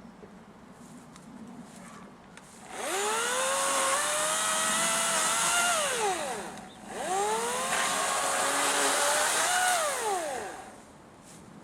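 Battery-powered electric chainsaw revved twice. Each time the motor whines up to speed, runs for about three seconds and winds down.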